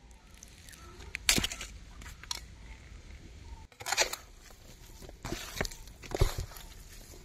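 Bare hands mixing minced chicken with spice powders on a plate: a few short, irregular squishing and rustling sounds.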